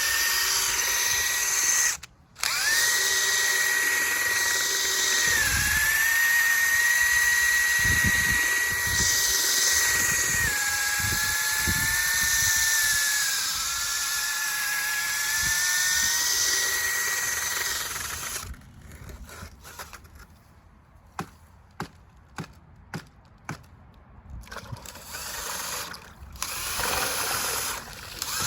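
Electric drill motor running with a steady high whine. It stops briefly about two seconds in and sags in pitch twice as it takes load. It cuts off a little past halfway, leaving scattered light clicks and knocks.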